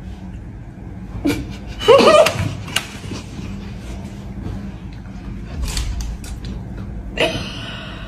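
Short outbursts of voices and stifled laughter, the loudest about two seconds in and another near the end, over a steady low room hum.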